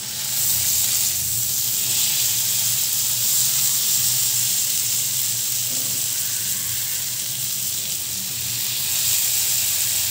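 Baked chicken legs sizzling in hot butter in a nonstick pan: a steady, high frying hiss that starts suddenly as the chicken goes in.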